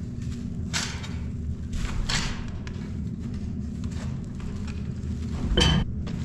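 Pitchfork working silage: three short scraping swishes, about one second in, about two seconds in, and a louder one near the end with a dull thud, over a steady low hum.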